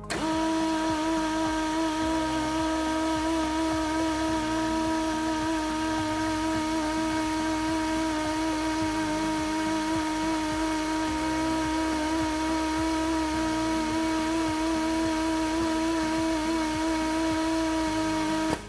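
Dodds C48J drawer clamp's air motor running steadily, driving the clamp head open along its ball screw: a steady whine over air hiss that starts and stops abruptly.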